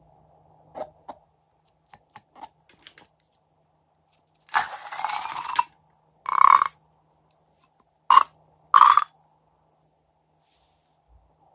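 Slime squeezed by hand out of the open neck of a balloon in squirts: a long one about four and a half seconds in, then three shorter ones. A few light handling clicks come before.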